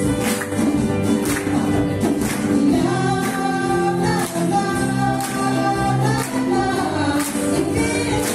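A live band of acoustic guitars and a hand drum plays a song with voices singing. The audience claps along on a steady beat of about one stroke a second.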